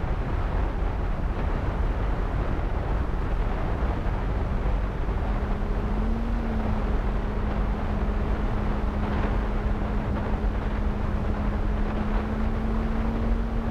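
Wind rushing over the onboard camera of a Skyhunter FPV plane in flight, a steady noise. The electric motor and propeller's steady hum comes in about five seconds in and holds to the end.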